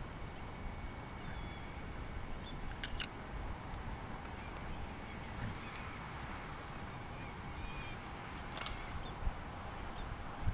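Outdoor ambience: a steady low rumble with faint, short, high bird chirps now and then. Two sharp clicks stand out, a quick pair about three seconds in and a single one near the end.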